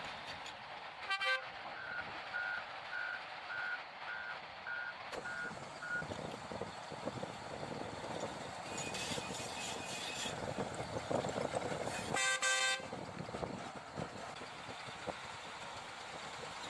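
A vehicle horn toots briefly, then a reversing alarm beeps about twice a second for several seconds over steady machinery noise; a second, louder horn blast sounds near the end.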